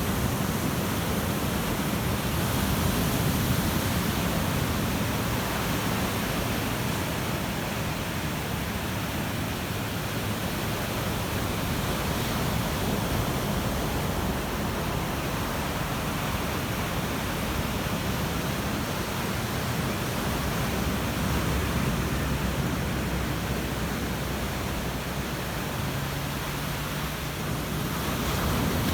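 Ocean surf: a steady wash of breaking waves that swells and eases gently.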